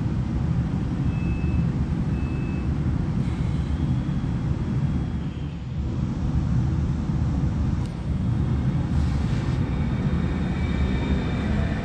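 Stadler FLIRT (ER75) electric multiple unit pulling out past the platform: a steady low rumble with a faint high whine, and two short beeps about a second in.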